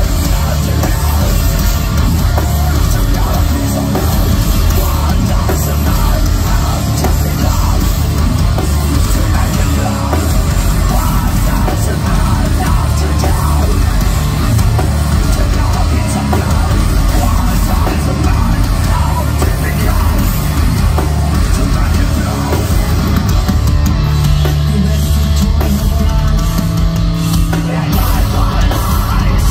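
A heavy metal band playing live and loud: a pounding drum kit, distorted bass and guitar, and a vocalist singing into a microphone, with no break.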